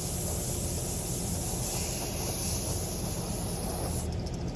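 Aerosol spray paint can hissing steadily as white paint is sprayed onto the clear RC car body; the spraying stops about four seconds in. A low steady rumble runs underneath.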